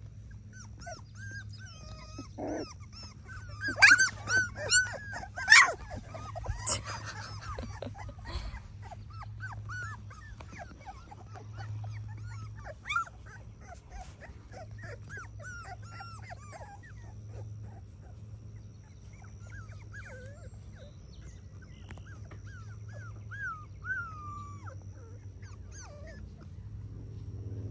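Three-week-old Labrador Retriever puppies whimpering and squeaking, with a burst of several loud yelps about four to six seconds in.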